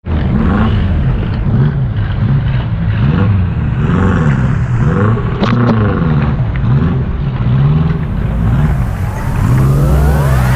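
Off-road vehicle engine revved up and down over and over, its pitch rising and falling about once a second, with a sharp crack about halfway through. A rising whine comes in near the end.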